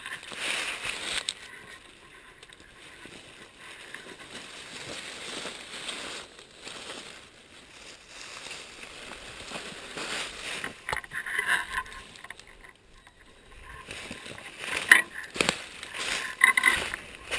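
Dry leaf litter rustling and crunching as the camera moves over the forest floor beside a dead wild turkey, with handling knocks. The rustle comes in irregular bursts and grows louder in the last few seconds.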